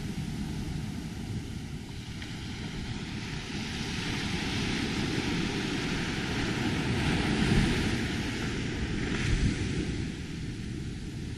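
Ocean surf washing in at the water's edge: a steady rushing over a low rumble that swells in the middle and eases near the end.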